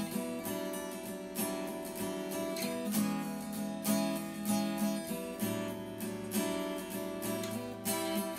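Background music: a strummed acoustic guitar playing a steady rhythm.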